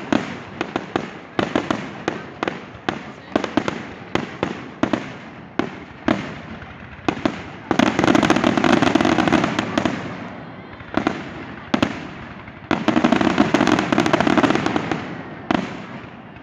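Fireworks display: a run of sharp bangs about twice a second, then two stretches of dense, rapid crackling bursts about eight and thirteen seconds in, each lasting a couple of seconds.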